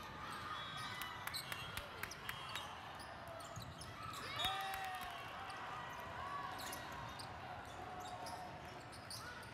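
Indoor volleyball rally: the ball struck several times by players' passes, sets and hits, as sharp scattered smacks, with players' voices calling out, one louder call about four and a half seconds in.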